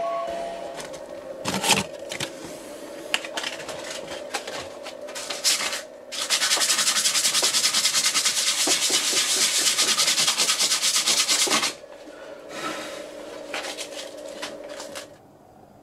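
Small CNC router's spindle running with a steady whine while its blunt metalwork bit cuts into MDF, with rasping and clicking as it goes. From about 6 to 12 seconds a loud steady rushing noise starts and stops abruptly. The machine falls quiet about 15 seconds in.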